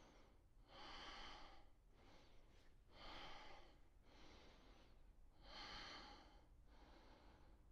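Faint, slow breathing of a man holding a yoga pose: four breaths, each a soft rush of air lasting about a second.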